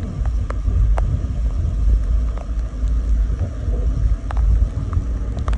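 Wind buffeting the microphone in the rain: an uneven low rumble, with a few scattered sharp ticks.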